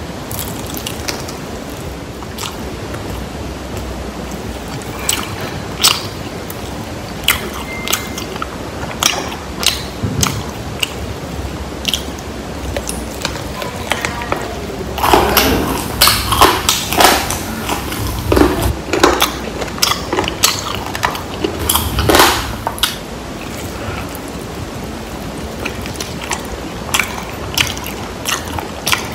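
Close-miked crunching and chewing of crispy fried chicken wings, with sharp crackles of the fried skin over a steady background hiss. The crunches are thickest in a run about halfway through and again a little later.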